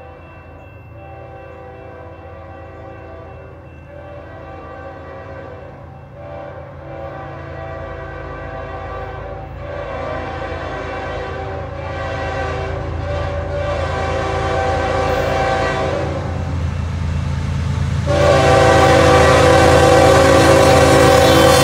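CN freight locomotive's air horn sounding a series of long blasts, a chord of several tones, over the low rumble of the diesel engines as the train approaches, growing steadily louder. The last blast, about 18 seconds in, is the loudest as the lead locomotive rounds the curve into view.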